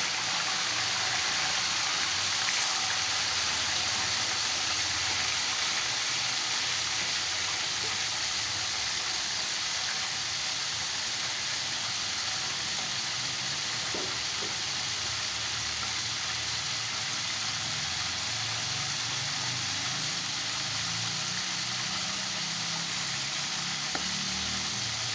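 Whole pomfret frying in hot oil in a metal baking tray: a steady sizzle.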